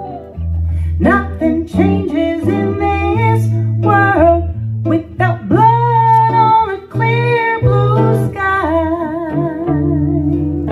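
A singer's voice carrying a wordless melody with long held, gliding notes and vibrato near the end, over a guitar accompaniment.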